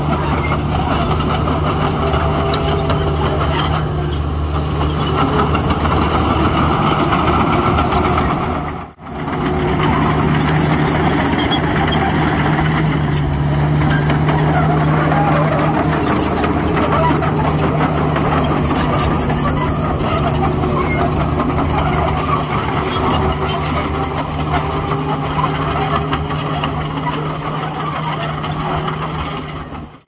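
Heavy diesel engine of earthmoving machinery running steadily, with a brief drop-out about nine seconds in.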